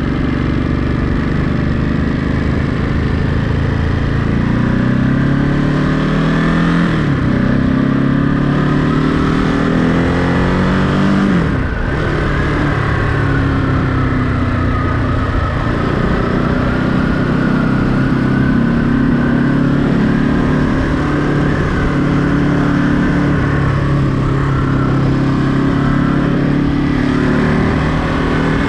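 Ducati Monster 937's L-twin engine pulling up through the gears: the pitch climbs, drops sharply at a shift about seven seconds in, climbs again and drops at a second shift about eleven seconds in. After that it runs at a steady cruise with small rises and falls in engine speed.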